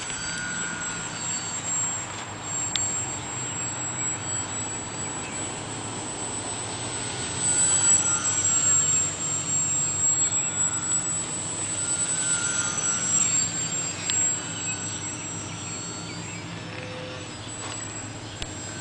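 Flatout Cap 580 radio-controlled model airplane flying overhead: a steady high whine from its motor and propeller, with a pitch that shifts as it manoeuvres, growing louder around the middle as it passes closer.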